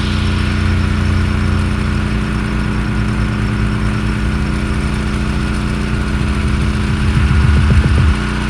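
Gas engine of a pressure washer running steadily.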